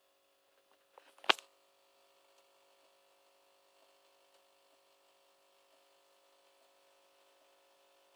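A single sharp click about a second in, with a little rustling just before it, over a faint steady hum.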